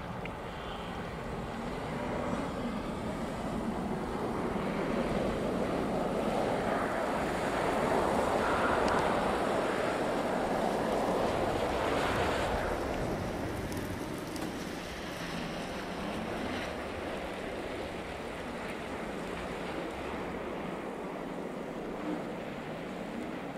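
Camouflaged Rolls-Royce Cullinan prototype with its twin-turbo V12 driving past on snow, engine and tyre noise swelling to a peak about ten seconds in and then fading, with wind buffeting the microphone.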